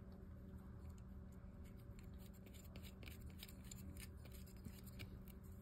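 Faint, scattered light clicks and scrapes of small metal parts being handled on a Penn Spinfisher 716Z spinning reel, over a low steady hum.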